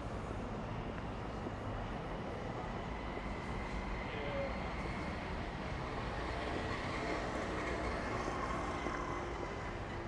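Steady outdoor city rumble of passing vehicles, with a faint high whine that grows louder in the middle.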